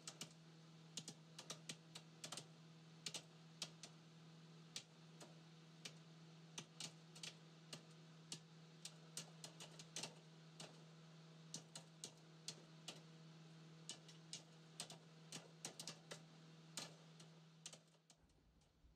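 Faint, irregular ticks, about two or three a second, of a small brush dabbing acrylic paint onto a stretched canvas, over a low steady hum. Both stop near the end.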